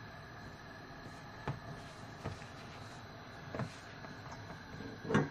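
Hand mixing and kneading flour-and-water dumpling dough in a stainless steel bowl: quiet working sounds with a few light knocks, the loudest just before the end.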